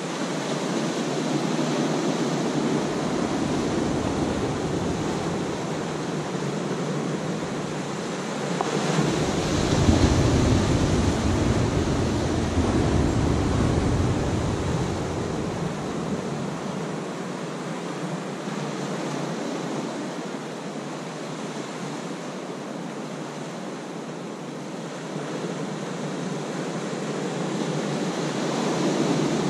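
Small ocean waves breaking and washing over a rocky shore: a steady surf noise that swells to its loudest about ten seconds in, with a deep rumble under it, then eases.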